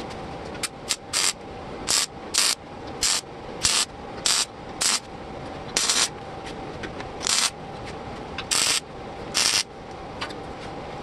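Welder laying a run of short tack welds on clamped sheet-metal body panels: a dozen or more brief hissing bursts, each under half a second, at irregular intervals of about half a second to a second.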